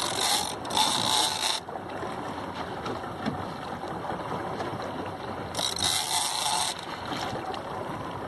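Wind and water rushing around a small open fishing boat at sea, a steady hiss with three louder bursts of hiss, each under about a second: one at the start, one about a second in and one about six seconds in.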